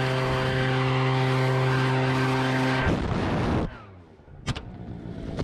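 Petrol backpack leaf blower running steadily at high speed, its engine note with a strong rush of air. About three seconds in the sound breaks up and cuts off, leaving a quieter stretch with one short sharp click.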